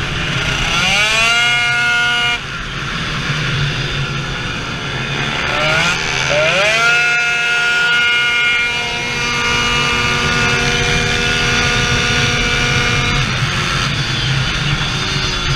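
Racing Yamaha Jog scooter's tuned 70cc two-stroke Minarelli engine (2Fast cylinder, HK expansion-chamber exhaust) at full throttle. Its revs climb steeply twice, with a sudden lift after the first climb, then hold high and steady for several seconds before easing off near the end.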